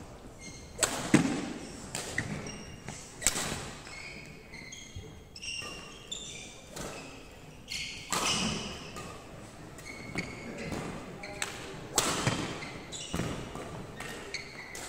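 Badminton rally: rackets striking the shuttlecock with sharp cracks at irregular spacing, the loudest about a second in and near the end, with short high squeaks of court shoes on the wooden floor between shots.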